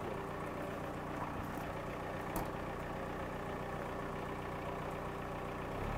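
VW T3 bus engine idling steadily, breathing through its snorkel and newly fitted tractor cyclone pre-filter.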